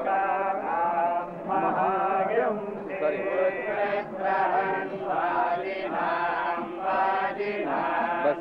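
Group of men chanting Vedic recitation in unison as a veda goshthi, many voices on a steady, gently sliding pitch in long phrases with brief breaks between them.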